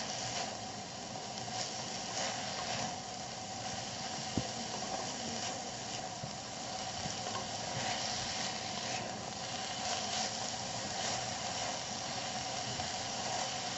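Chopped spring onion greens sizzling in oil in a kadhai over a high gas flame as they are stir-fried with a wooden spatula. The steady sizzle carries occasional soft scrapes of the spatula.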